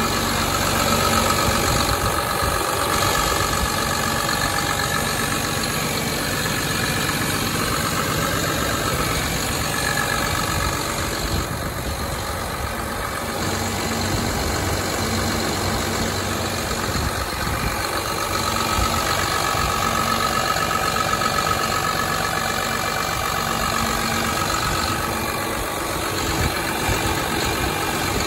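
Cat C7.1 diesel engine of a Cat 330 excavator idling steadily, heard up close through the open engine compartment.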